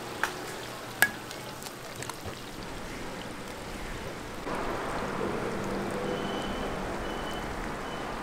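Dozens of eggs frying in a large wok of hot oil, a steady sizzle and bubbling, with two sharp clicks in the first second or so. The sizzle gets louder about four and a half seconds in.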